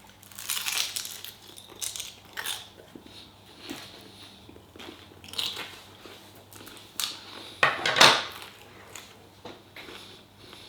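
Person biting and chewing a piece of chicken close to the microphone, with irregular bursts of eating noise; the loudest comes about eight seconds in.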